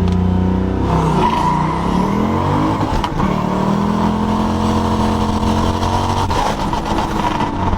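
Turbocharged Ford Mustang Bullitt's V8 under power, its revs climbing for about two seconds. The climb breaks off about three seconds in and the engine then holds a steady note.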